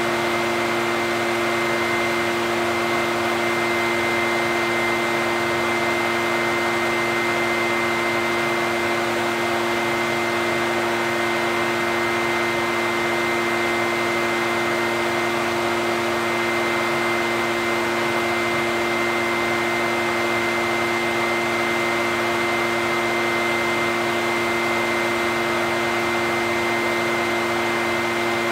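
Echo backpack leaf blower's two-stroke engine and fan running at a steady speed: an even rushing drone with a steady high whine over it.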